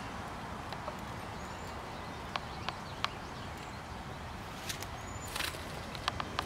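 Footsteps through a garden bed and onto stepping stones: a few sharp scuffs and clicks of shoe on stone and brief rustles through mulch and plants, over a steady low rumble.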